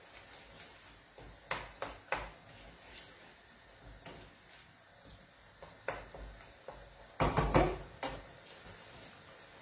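Light knocks and clatter of cookware on a gas stove: a wooden spoon stirring in a frying pan and pans shifted on the grates. There are a few separate knocks in the first seconds and a louder cluster of knocks about seven seconds in.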